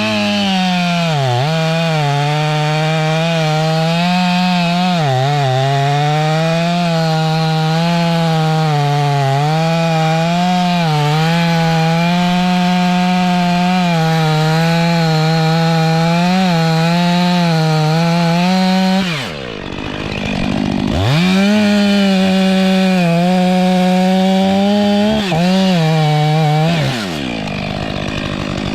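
Stihl MS 500i fuel-injected two-stroke chainsaw held at full throttle cutting wood, its pitch dipping again and again as the chain loads up in the cut. The revs drop away for a couple of seconds about two-thirds of the way through, climb back for another cut, then fall away near the end.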